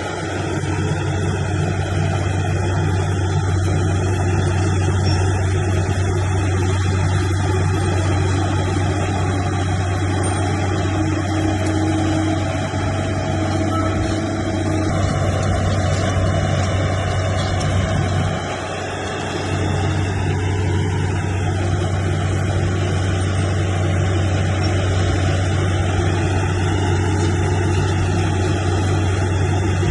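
Bulldozer's diesel engine running steadily with a deep, continuous drone, easing off briefly about eighteen seconds in before picking up again.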